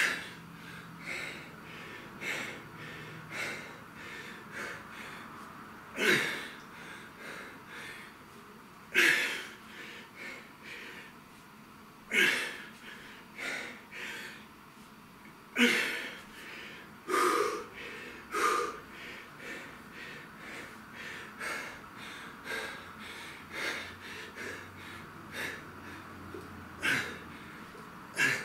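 A man breathing hard from the effort of lifting dumbbells. Sharp, forceful exhales come every few seconds, with quicker, softer breaths between them.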